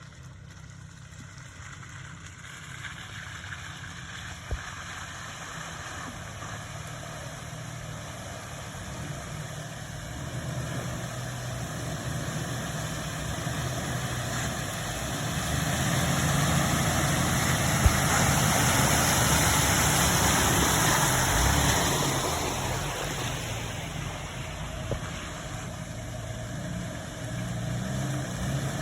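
Jeep TJ engine running under load, growing louder to a peak about two-thirds of the way through and then fading, with a rushing hiss loudest at the peak.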